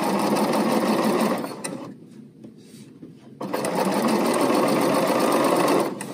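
BERNINA sewing machine stitching fast along fabric-wrapped piping cord, in two runs: it stops about two seconds in, starts again a second and a half later, and stops just before the end.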